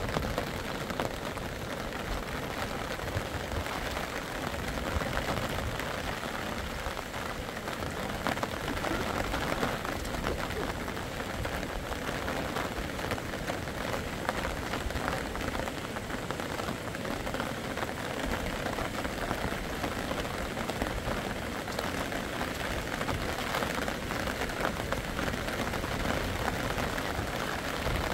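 Steady rain falling, an even hiss of drops that holds at one level throughout.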